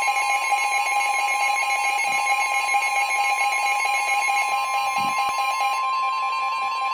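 Emergency alert attention signal: a loud, steady electronic alarm tone held without a break. A second, lower tone under it drops out about six seconds in while the main tone carries on.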